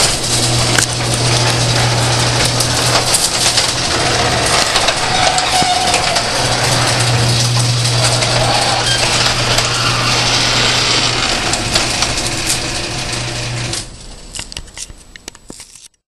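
Garage door closing under an electric opener: the motor hums and the door rattles along its track steadily for about fourteen seconds, then stops suddenly, leaving a few faint clicks.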